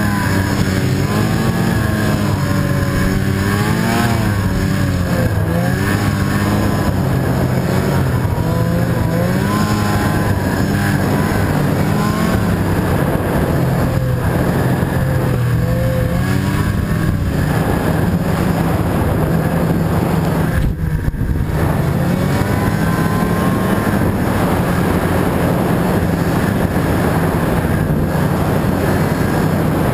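Snowmobile engine running under way, its pitch rising and falling repeatedly as the throttle is worked along the trail.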